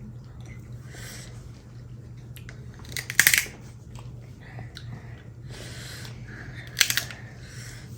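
King crab shell being cracked apart by hand: two loud crackling crunches, about three seconds in and again near the end, with quieter handling and chewing between.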